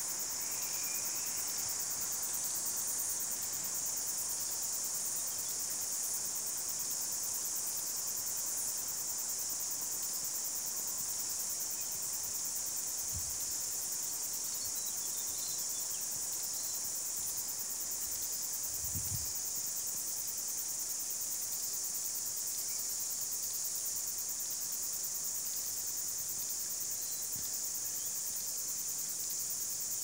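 Steady high-pitched insect chorus, unbroken throughout, with a few faint bird chirps over it.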